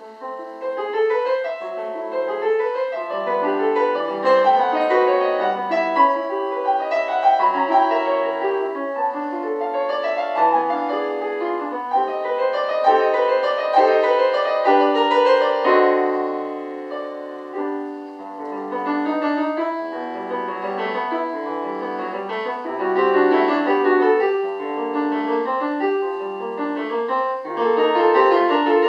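Solo piano playing a classical piece, starting just after a silent pause with many notes in the middle and upper range.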